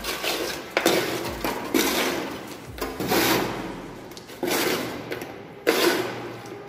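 Fresh concrete being scooped off a steel mixing tray and dropped into a steel cube mould: a series of about six scraping strokes, each starting sharply and fading away within a second.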